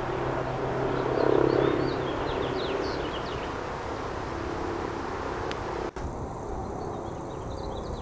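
Honey bee swarm buzzing as it hangs clustered on a tree branch: a steady hum, fullest about a second in, with short bird chirps over it.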